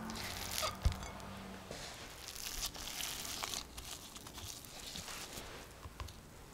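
Thick chocolate chip cookie dough being worked with a silicone spatula in a glass bowl, with a sharp knock about a second in. Then soft crinkling and rustling as a disposable-gloved hand handles a lump of the dough and sets it on a digital kitchen scale.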